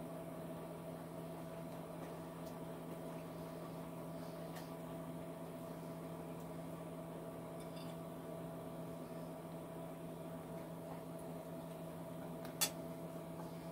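Steady low hum of an appliance or fan running in a small room, with a few faint clinks of a fork on a plate and one sharp click about a second before the end.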